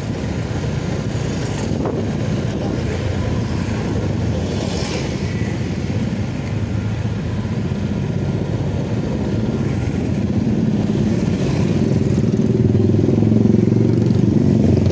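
Motorcycle engine running steadily while riding through road traffic, with other motorbikes passing by about five and eleven seconds in. The traffic noise grows louder near the end as more motorcycles crowd alongside.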